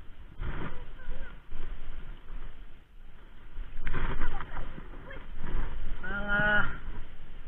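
Footsteps and rustling through grass and weeds, with cloth and handling noise against a body-worn camera, loudest about half a second in and around four seconds. Near the end comes one short held vocal call, lasting under a second.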